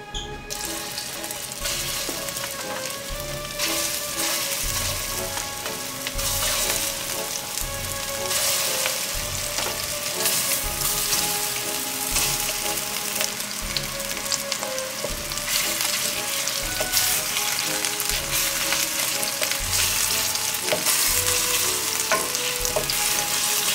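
Meatballs sizzling as they fry in hot olive oil in a metal pan. The sizzle starts sharply as the first ones go in and grows louder as more are added.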